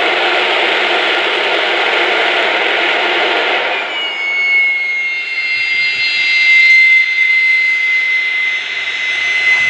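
GE J79 turbojet running at full military power, heard from a few hundred yards as a dense, steady roar. About four seconds in the roar drops away, leaving a steady high whine that falls slightly in pitch.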